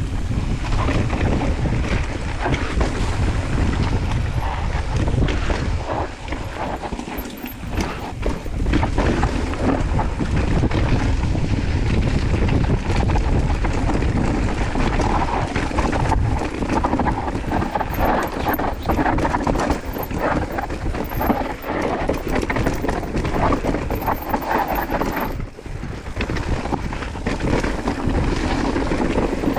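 Wind buffeting the microphone over a mountain bike's tyres rolling on a rough dirt trail, with frequent rattles and knocks from the bike over bumps.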